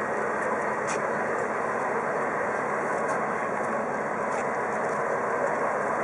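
Diesel engine of a parked Rosenbauer Panther airport crash tender idling with a steady, unchanging noise.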